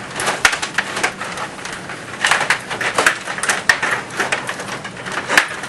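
Table hockey game in play: the puck and the metal players clacking, with rods rattling, in an irregular run of sharp clicks and knocks.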